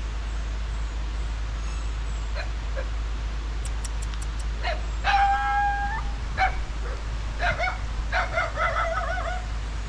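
A dog yelping and whining, with a held cry about five seconds in and a run of wavering whines near the end, over a steady low rumble.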